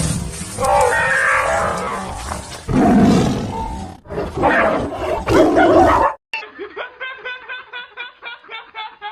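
Several loud, drawn-out roars like a big cat's, cutting off abruptly about six seconds in. A short stretch of light music with an even plucked beat, about three notes a second, follows.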